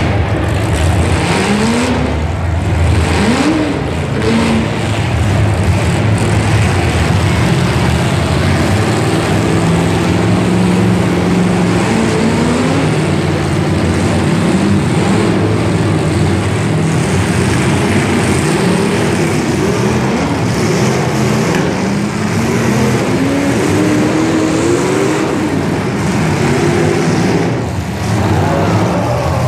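Several demolition derby cars' engines revving over one another in the dirt arena, pitch climbing and falling again and again as the drivers throttle up and let off.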